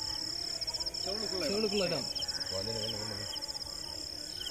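Night crickets trilling: a steady high-pitched drone with quick pulsed chirps over it, and a person's voice briefly in the middle.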